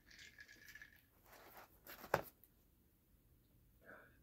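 Quiet tabletop handling noises, with one sharp click about two seconds in.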